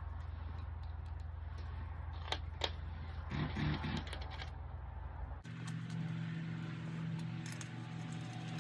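A few light clicks and a short clatter of parts being handled over a low steady hum. About five seconds in, this cuts abruptly to background guitar music.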